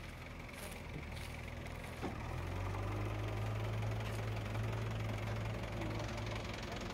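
Diesel engine idling with a steady, low, knocking drone that grows louder about two seconds in.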